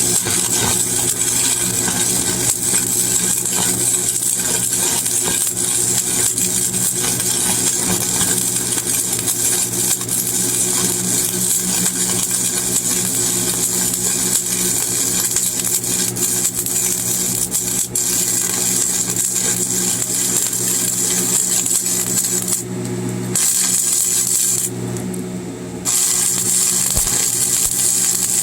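Stick arc welding with a 7018 rod: the arc crackles and sizzles steadily over a low hum. Near the end the crackle cuts out twice, for about a second each time, while the hum carries on.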